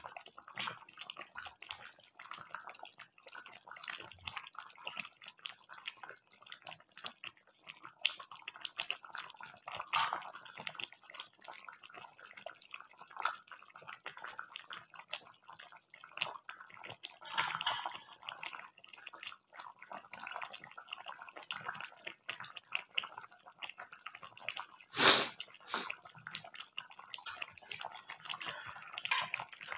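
Chicken curry simmering in a metal pan: irregular bubbling and popping of the gravy, with one louder knock late on.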